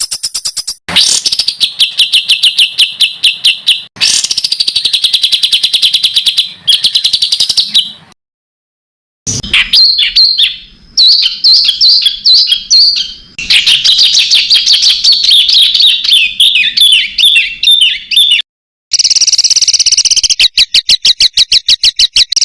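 Songbird song spliced together from several recordings for bird tutoring. It has dense runs of rapid, repeated high notes, many a second, and changes abruptly at each cut, with a silent gap of about a second in the middle.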